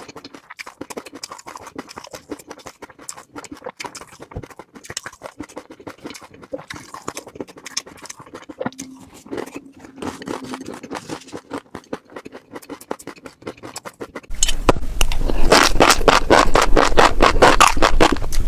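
Fish roe being scraped and handled, a stream of fine wet clicking and scraping. About fourteen seconds in, it switches suddenly to a much louder, dense rapid clicking over a low hum.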